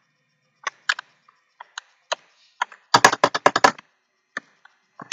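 Computer keyboard keystrokes: scattered single key presses, with a quick run of rapid keystrokes about three seconds in.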